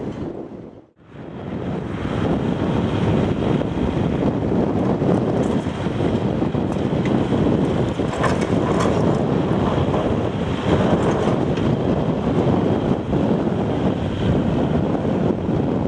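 Heavy wind buffeting the microphone over the steady running of a CAT 349E excavator's diesel engine. The sound drops out briefly about a second in.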